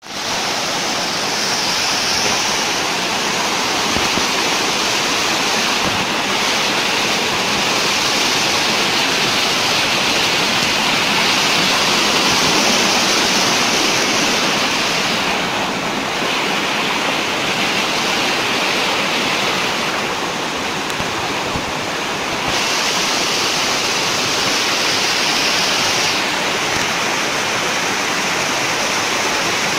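Thác Hiêu waterfall: water rushing steadily over shallow, stepped rock cascades, a loud, even hiss.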